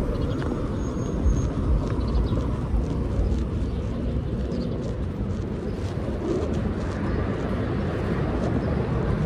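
Outdoor street ambience: a steady low rumble of traffic, with no distinct single event.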